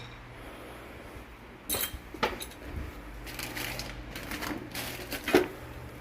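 Irregular clunks and rattles from a car's undercarriage over a steady low hum, starting near two seconds in and loudest near the end. This is the underbody noise the owner is trying to track down.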